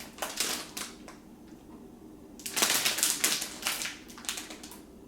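Crinkly wrapping handled by hand, rustling and crackling in two bouts: a short one right at the start and a longer one from about two and a half to four and a half seconds.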